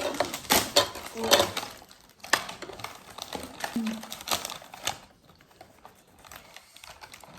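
Plastic biscuit packet crinkling as it is handled: an irregular run of sharp crackles that dies down to occasional faint clicks about five seconds in.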